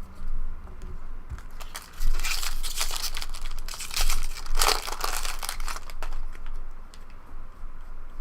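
A trading-card pack wrapper crinkling and being torn open, in uneven bursts of rustling. The loudest bursts come about two seconds in and again around four to five seconds.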